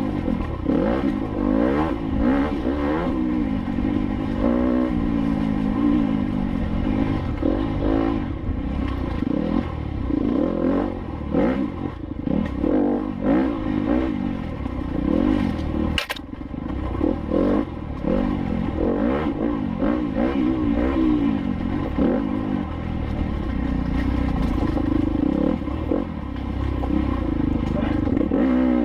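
Enduro motorcycle ridden hard, its engine revving up and down with constant throttle changes, with clattering over rough ground and one sharp knock about sixteen seconds in.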